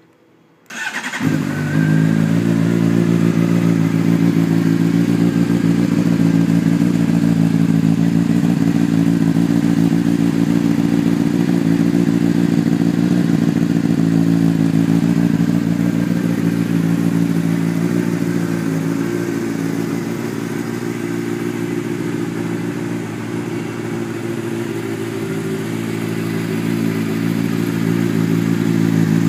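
2009 Honda CBR600RR's 600 cc inline-four engine starting on the electric starter about a second in, then idling steadily through an Akrapovic slip-on exhaust.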